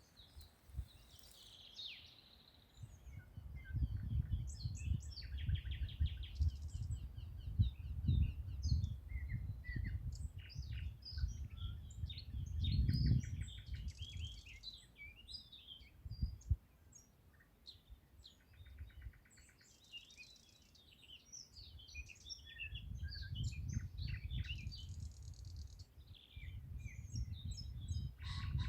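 Several birds singing and chirping in a spring woodland, a mix of short chirps and trills overlapping throughout. Under them, a low rumble rises and falls in long gusts and is the loudest sound for much of the time.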